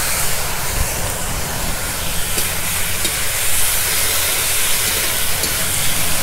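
Chicken mince with onion and chilli frying in hot oil in a kadai, a steady sizzling hiss, with a few light clicks.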